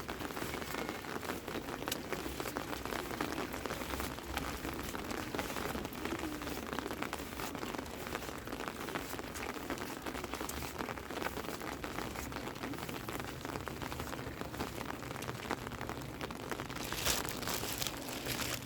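Heavy rain falling steadily, a dense patter of drops striking surfaces, with a brief louder rush near the end.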